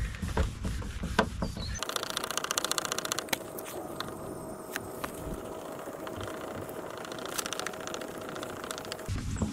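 A plastic car headlight lens being rubbed hard back and forth by hand with a pad and cutting compound, with a few sharp clicks at the start; the rubbing quickens into rapid strokes about two seconds in, then settles into a steady rub.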